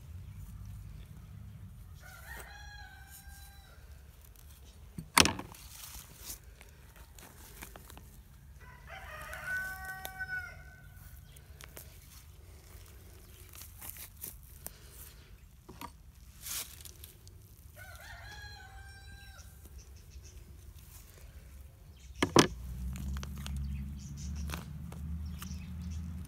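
A rooster crowing three times, each crow about a second and a half long, with several seconds between them. Two sharp knocks, the loudest sounds, come about 5 seconds in and near the end, and a low rumble grows louder after the second.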